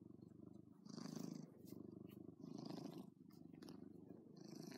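Domestic cat purring close up as it is stroked, the purr swelling and easing about once a second in rhythm with its breathing.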